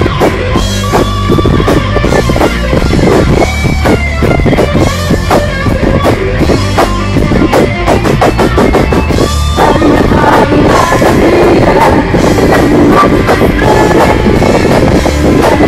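Live rock band playing: electric guitars and drum kit, with a woman singing into a microphone. Recorded loud on a mobile phone.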